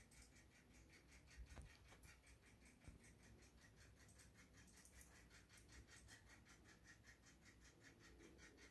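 Near silence: faint background with a rapid, even pulsing of about eight beats a second and a couple of soft knocks in the first few seconds.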